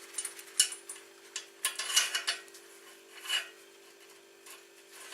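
Irregular metal clicks and scrapes of a 10 mm wrench backing out a loosened motorcycle exhaust bolt, over a steady low hum.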